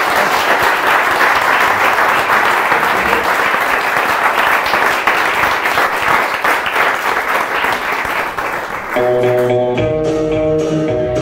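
Audience applauding for about nine seconds, the clapping slowly easing, then an instrumental music intro starts about nine seconds in.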